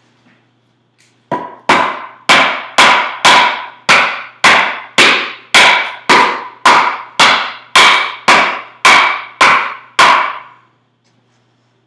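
Wooden club knocking homemade wooden wedges into the top of a maple log, about seventeen strikes at a steady two a second, each ringing briefly. The wedges are driving a split down the log along the grain.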